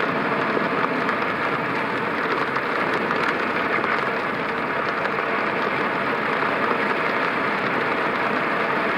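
Car driving on a wet road in rain: a steady hiss of tyres and rain with the engine running underneath.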